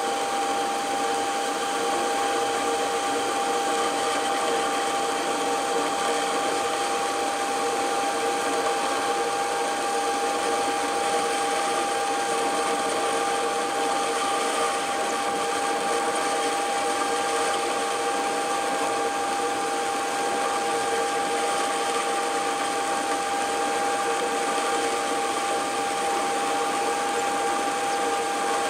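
Metal lathe running steadily while a carbide-insert tool turns down a connecting rod held between the chuck and a centre. A steady whine from the machine runs under the even noise of the cut.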